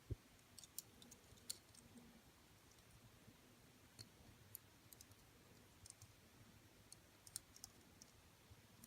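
Faint, scattered small clicks of a diecast model car's wheels and rubber tires being handled as the tires are pushed on.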